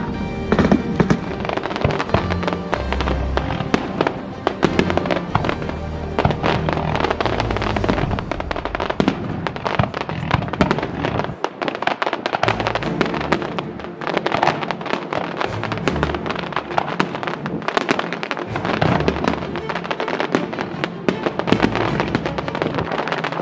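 Aerial fireworks display bursting overhead: a dense stream of sharp cracks and pops, thickest in the second half, with music playing alongside.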